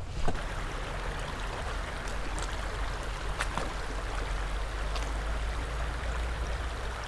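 Shallow creek water running over rocky rapids, a steady rushing, with a sharp knock just after the start and a few fainter clicks.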